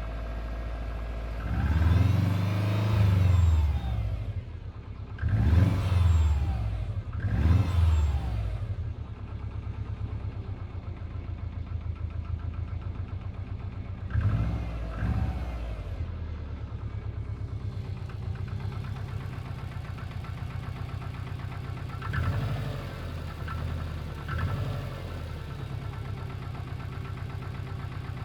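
Subaru EJ20G turbocharged flat-four idling with a steady rhythmic knock, revved in three short throttle blips early on and in smaller blips later. The knock is a long-standing one that the owner suspects comes from a connecting rod, while others take it for forged pistons.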